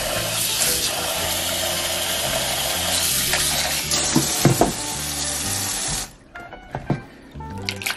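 Cold tap water running into a plastic blender jar, splashing over freshly churned butter to rinse out the buttermilk. The flow cuts off about six seconds in.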